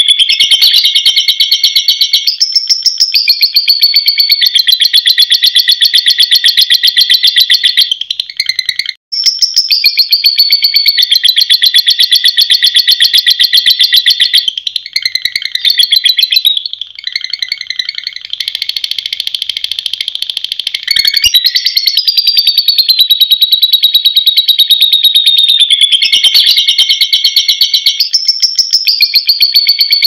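Lovebird's long, fast, high-pitched chattering trill (ngekek), running on almost without a break, with a short pause about nine seconds in and a softer stretch a little past the middle.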